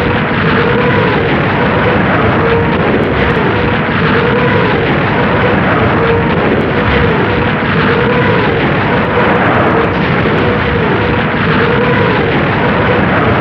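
Katyusha truck-mounted rocket launcher firing a salvo: a loud, unbroken rush of rocket motors with a wavering howl that rises and falls about every one and a half seconds.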